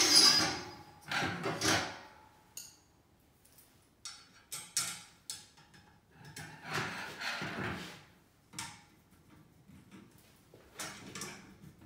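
Black metal rod frame pieces of a document tray being handled, knocking and rattling against each other and the wooden desk top in irregular clatters, loudest in the first couple of seconds.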